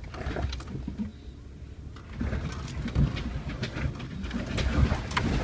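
Off-road vehicle rumbling low as it creeps down a rough, steep trail, with knocks and rattles from the body jolting over the ground, louder from about two seconds in.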